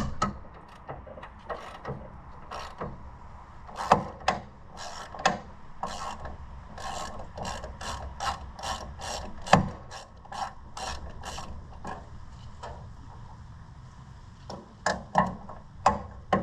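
Socket ratchet wrench clicking in runs as a bolt is turned, about four clicks a second through the middle, with a few louder metal knocks between.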